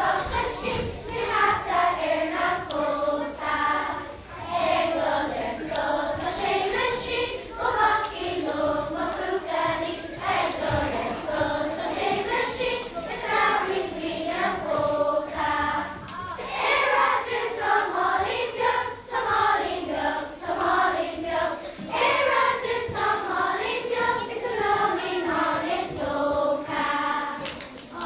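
A children's school choir singing together, a melody that rises and falls.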